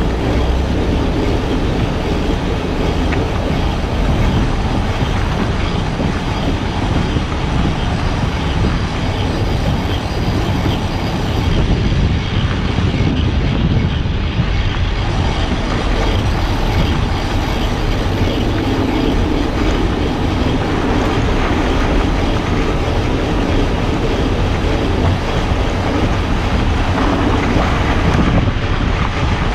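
Hummer H2 rolling, heard from a camera set by a front wheel: a steady rumble of tyres and running gear. This is the noise being recorded as a grinding, metal-on-metal sound that changes with road speed, which the owner puts down to worn front wheel bearings.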